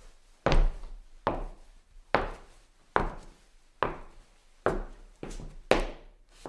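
Footsteps of shoes on a wooden stage floor, a steady walking pace of eight sharp, knocking steps with a short ring of the room after each, coming a little quicker near the end.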